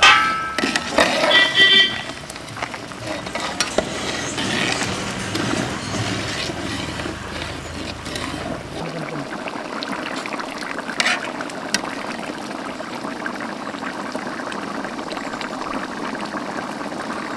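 Mutton curry bubbling at a steady boil in a large aluminium pot, with a couple of sharp ticks about eleven seconds in.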